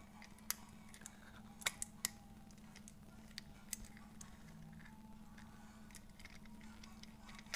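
Sharp clicks and taps of a plastic and metal suction-cup camera mount and its adaptor being handled and fitted together, a cluster of them in the first two seconds and a few more later, over a steady low hum.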